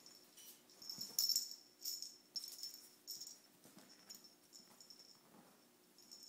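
A small bell in a feathered toy ball jingling in short, irregular shakes as a ferret carries and tugs it, loudest about a second in.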